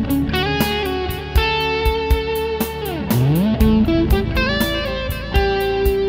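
Electric guitar played through an Ernie Ball Overdrive foot pedal: held, overdriven notes and short licks, with a quick downward slide in pitch about halfway through before the notes climb again.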